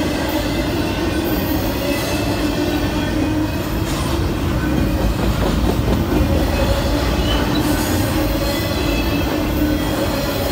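Double-stack intermodal container train passing close by: the well cars' steel wheels roll on the rail in a loud, steady rumble, with a few steady whining tones held over it.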